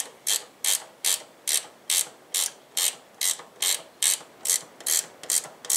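Hand socket ratchet being swung back and forth on a bolt, its pawl clicking in short, even bursts about two and a half times a second as the bolt is tightened.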